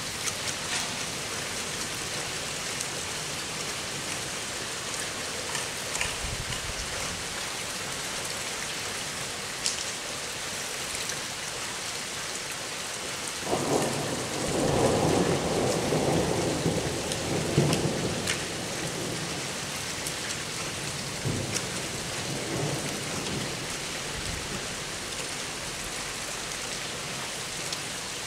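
Steady rain falling through the whole stretch. About halfway through, a roll of thunder sets in suddenly and rumbles for several seconds, followed by a couple of fainter rumbles.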